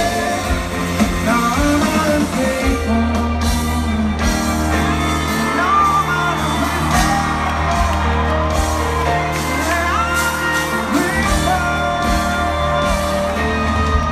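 A live pop-rock band playing loudly in a large venue, with a sung vocal melody over a steady heavy bass, and shouts and whoops from the crowd.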